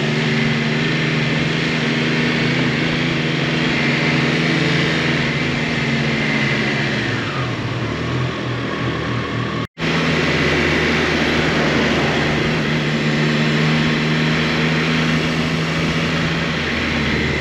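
Motorcycle engine running steadily at low town speed, heard through the bike-mounted camera's microphone with road and wind noise. The engine note eases off about seven seconds in, and the sound cuts out for a split second near the middle before the same steady running returns.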